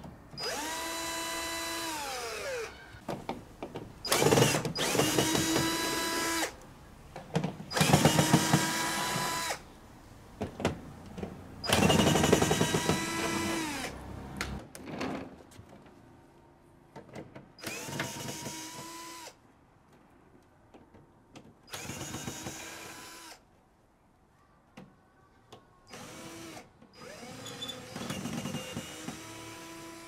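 Cordless drill-driver working screws in the plastic casing of a Midea portable air conditioner. It runs in about eight short whirring spurts of one to three seconds each, the pitch dropping as the motor spins down at the end of some, and the later spurts are quieter.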